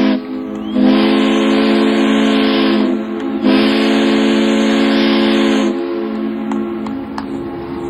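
Ship's steam whistle sounding: a short blast cuts off just after the start, then two long steady blasts of about two seconds each with a brief gap between, over a hiss of steam. A fainter whistle carries on after the second blast ends.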